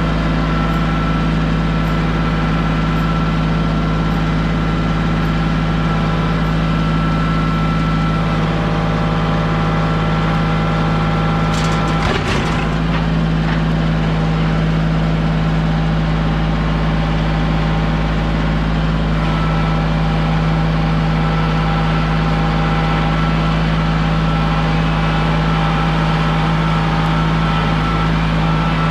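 A vehicle engine running at a steady speed with a constant low hum. About twelve seconds in there is a brief rattle.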